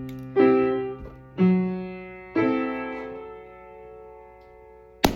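Piano music: a few chords struck about once a second, each ringing out and fading, then a single sharp click near the end.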